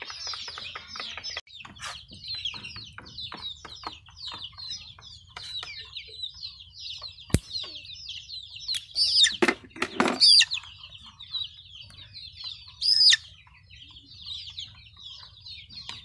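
A group of young desi chicks peeping continuously in short falling chirps, with a few louder, shriller calls about nine to ten seconds in and again near thirteen seconds. A single sharp click sounds about seven seconds in.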